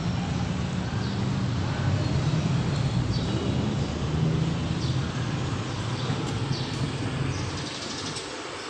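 Outdoor urban background noise: a steady low rumble, like distant traffic or engines, that eases off near the end.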